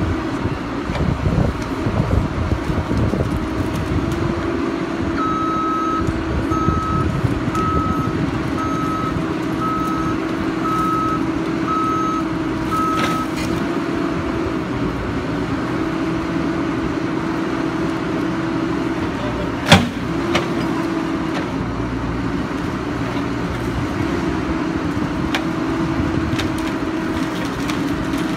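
Tracked excavator's diesel engine and hydraulics running steadily, the pitch shifting slightly as it works. Its travel alarm beeps about once a second from about five seconds in to about thirteen seconds, and a single sharp crack sounds about two-thirds of the way through.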